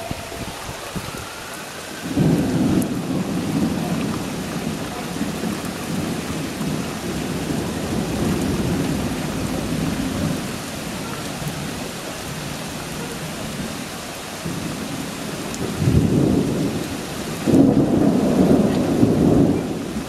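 Thunder rumbling over steady rain. A long roll of thunder begins about two seconds in and fades after several seconds, then two more loud peals come near the end.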